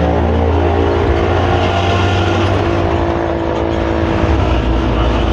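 Hino AK3-HR bus engine and exhaust running under way, a low, steady growl heard from the rear seats inside the bus.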